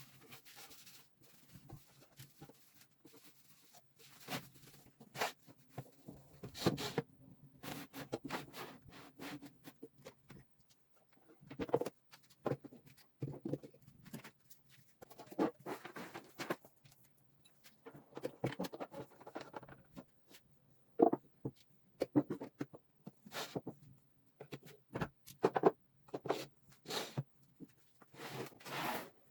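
Irregular knocks, scrapes and short rasping strokes of scrap wood being handled and worked by hand, with a few sharper knocks, the loudest about 21 seconds in.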